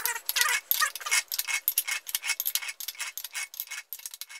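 Rapid, irregular light metallic clicking and clinking from the valve rocker gear of an A-Series 1098 engine, worked by hand while the valve clearances are rechecked. The clicks thin out near the end.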